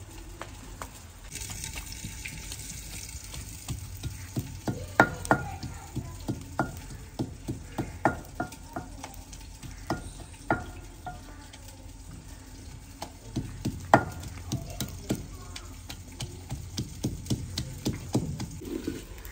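Ginger, garlic and green chillies being pounded with a pestle in a mortar: sharp irregular knocks, about one or two a second, with a short lull past the middle. A frying sizzle from the pan runs underneath.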